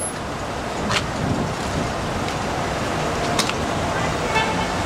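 Steady road traffic and idling vehicle noise, with two sharp clicks, one about a second in and one past the middle.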